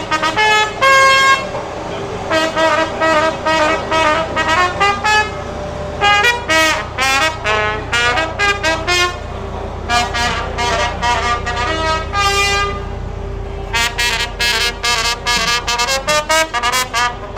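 Background music: a melody of quick, short notes played in phrases with brief pauses between them, over a steady low hum.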